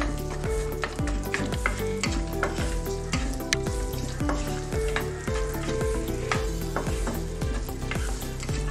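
Almonds, cashews and dates sizzling in hot ghee in a non-stick pan while a wooden spatula stirs and scrapes them, with many small clicks of spatula and nuts against the pan. Soft background music plays underneath.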